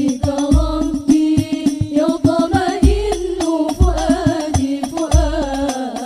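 Several women's voices singing a sholawat melody together, accompanied by banjari frame drums (rebana) played in a quick rhythm of deep bass strokes and sharp hand slaps.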